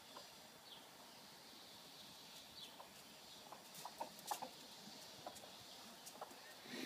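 Quiet yard with a hen's occasional soft clucks and a few light clicks and taps, the busiest and loudest stretch a little past halfway.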